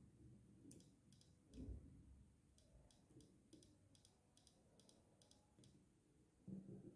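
Faint, sharp clicks, about a dozen spread unevenly over several seconds, as a wire end is tapped and held against the screw terminal of a small power supply, making and breaking contact. A soft low thud comes about two seconds in and another near the end.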